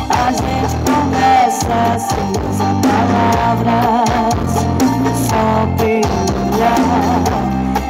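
A song with singing and guitar played loud over a trailer-mounted car-audio sound system of stacked subwoofers, horn midranges and tweeters, with a heavy bass line throughout.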